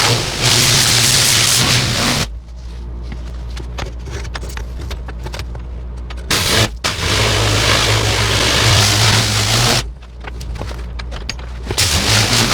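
Pressure washer with a turbo nozzle blasting concrete, a loud hiss of spray that stops after about two seconds, comes back for a few seconds in the middle, stops again and restarts near the end. The machine's motor runs on as a steady low hum while the spray is off.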